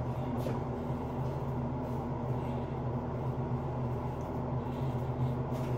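Steady low mechanical hum of a running vehicle, with an even drone that holds the same pitch throughout.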